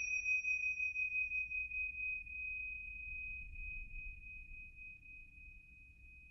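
The lingering ring of a high bell-like chime, one clear tone slowly fading away over a faint low hum.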